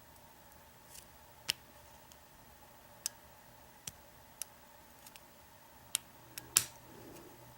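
Sharp, irregular small metallic clicks from single-pin picking an American Lock 1100 padlock, with pick and tension wrench working inside the keyway, the loudest click about six and a half seconds in.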